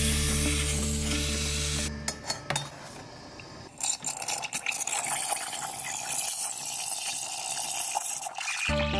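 Clinks of a stainless steel milk pitcher being handled at an espresso machine. From about four seconds in, the machine's steam wand hisses steadily into the almond milk.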